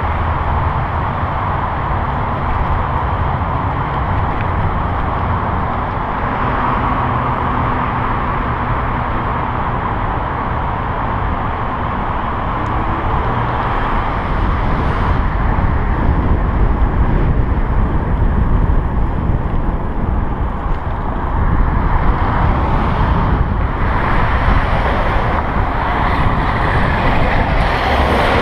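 Steady wind rushing over a bicycle-mounted action camera's microphone, mixed with the noise of cars and trucks driving past in the next lanes.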